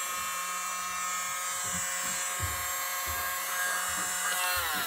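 Small electric motor and fan of a toy mini blower running with a steady whine, its pitch dropping in the last half second as it winds down.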